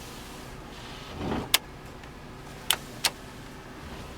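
Switches on the dashboard of a 2002 GMC Safari van clicking three times, with short whirs from the rear wiper motor as the wiper is tested. One whir comes about a second in and another at the very end.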